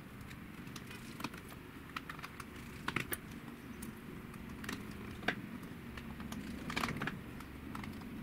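Small screwdriver clicking and ticking against tiny screws as they are driven back into a laptop's bottom cover. Light, scattered clicks, a few louder ones about three, five and seven seconds in.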